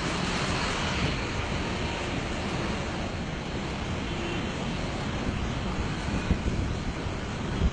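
Steady rushing noise of a waterfall pouring down a rocky cliff face, with an uneven low rumble underneath.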